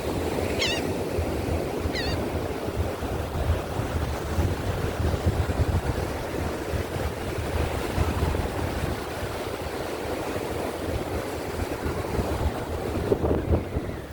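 Wind buffeting the microphone in a heavy, gusting rumble over the steady wash of surf breaking on a beach.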